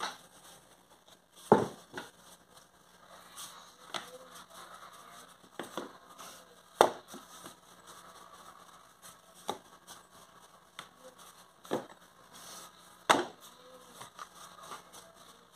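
White plastic rolling pin rolled back and forth over dough on a plate, with irregular sharp knocks as the pin bumps and rocks against the dish; three louder knocks about five seconds apart.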